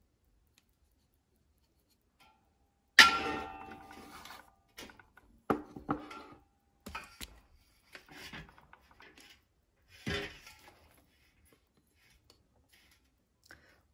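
A stainless steel basin clanks once, sharply, about three seconds in and rings briefly. It is followed by scattered light knocks, clinks and scrapes as terracotta pots are handled on a wooden table.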